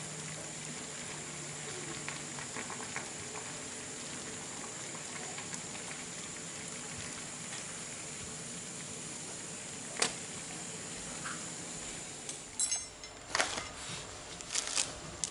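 Water boiling steadily in an aluminium saucepan on a gas burner, with a plastic bag of carp bait being boiled in it. A single sharp knock comes about ten seconds in, and plastic bag crinkling from handling near the end.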